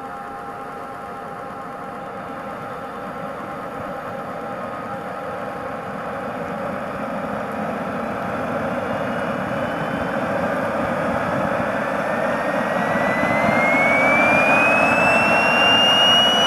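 JetsMunt 140 model gas turbine starting up: a steady hiss grows gradually louder, then from about two-thirds of the way through a whine rises steadily in pitch as the turbine spools up.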